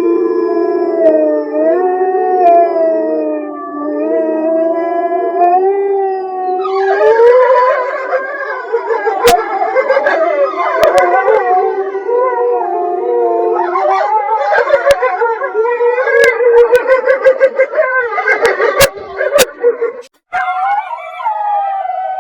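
Wolves howling: one or two long, wavering howls at first, then about seven seconds in many more voices join in an overlapping pack chorus. It cuts off briefly near the end before a single howl starts again.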